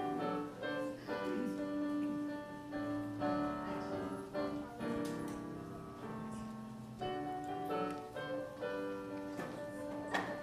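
Piano playing an instrumental passage of sustained chords and a melody line, with a brief sharp knock near the end.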